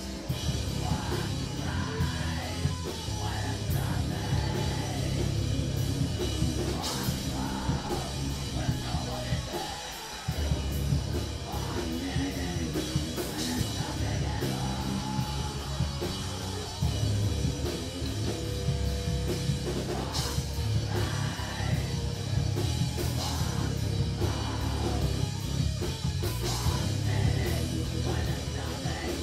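Live rock band playing: electric guitars and a drum kit with crashing cymbals, and a vocalist into the microphone. The music drops out briefly about ten seconds in.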